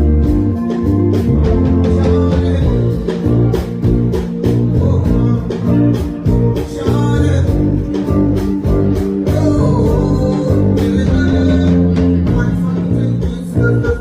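Live band playing an Afrobeats groove through a PA, with electric guitar, bass and drums and possibly faint vocals.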